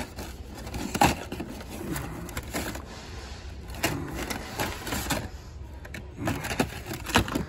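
Blister-carded die-cast toy cars clacking and rustling as they are rummaged through, with irregular sharp knocks about a second apart.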